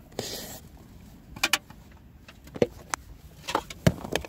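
Handling noise inside a car: a short rustle, then a string of sharp clicks and knocks at irregular intervals.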